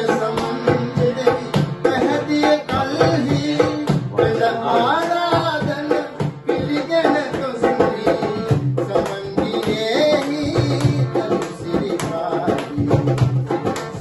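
An old Sinhala song playing, with a steady drum beat under a melody line that bends in pitch.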